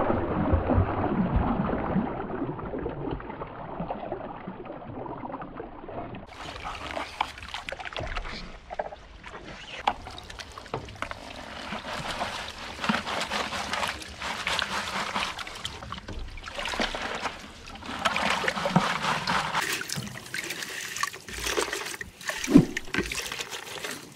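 Water poured from a bucket onto a diamond classifier screen in a wash tub, then wet gravel and mud tipped from a plastic five-gallon bucket onto the screen, splashing and rattling into the water.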